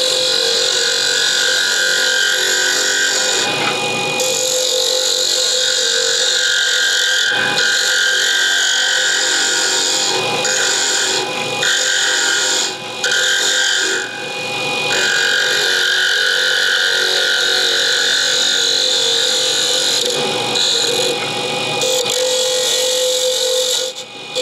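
Wood lathe spinning a hollow closed-end pen blank while a hand-held turning tool cuts it. The cut sets up a loud ringing as the hollow wooden body resonates. The ringing breaks off and comes back several times as the tool leaves and re-enters the wood.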